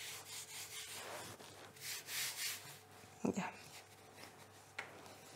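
Hand rubbing flour over a sheet of fresh egg-pasta dough on a wooden board: faint, soft brushing, with a light knock a little past three seconds and a small click near the end.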